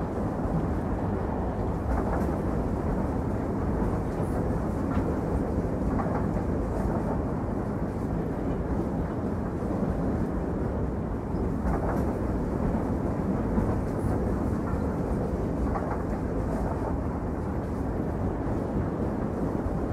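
A train running, heard as a steady low rumble with faint knocks every couple of seconds.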